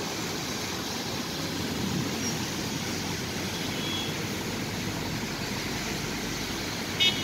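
Steady hiss of traffic driving through a flooded street, tyres pushing and spraying water. Near the end there is a short, high-pitched double beep.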